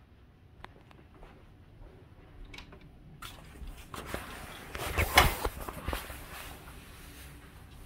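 Floor-length hotel curtains being pulled open by hand: the fabric rustles and the runners slide and click along the track, building about three seconds in and loudest around five seconds in. A few small clicks come first.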